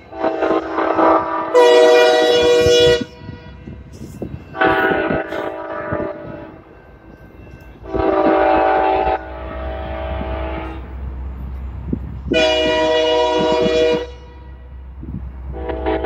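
Multi-chime air horn of a BNSF diesel locomotive sounding a series of long blasts, about five, each a chord of several steady notes with short gaps between them. The low rumble of the locomotives' diesel engines runs underneath from about halfway, as the units move away.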